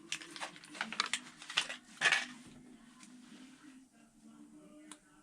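Small clicks and clinks of a tiny 2721 indicator bulb being worked out of its holder in a toggle switch, several in the first two seconds, then fainter.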